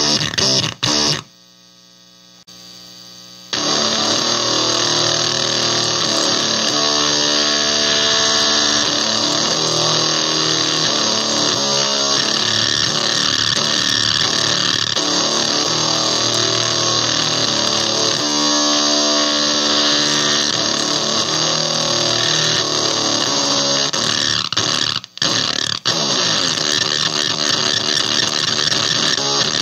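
Electric guitar through a Basic Audio Pendulum pedal in oscillation mode, set squelchy, crackly and extreme: a loud, noisy, crackling fuzz with guitar notes showing through it now and then. It drops away about a second in, comes back a couple of seconds later, and cuts out briefly near the end.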